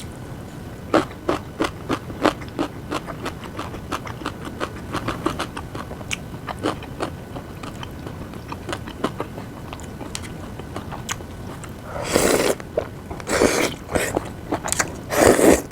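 A person chewing food close to the microphone: many quick wet clicks and smacks. Near the end come three louder noisy bursts, each lasting under a second.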